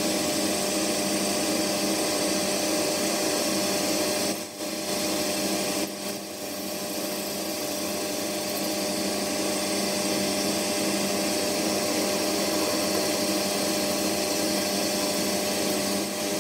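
Boxford metal lathe running steadily with a constant motor and gear hum while a boring tool cuts out the centre of a brass £1 coin held in a collet. The sound dips briefly twice, about four and a half and six seconds in.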